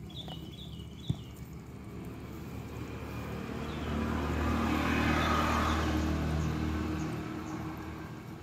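A motor vehicle passing by: its engine hum and road noise swell to a peak about five seconds in and then fade away. One sharp tap comes about a second in.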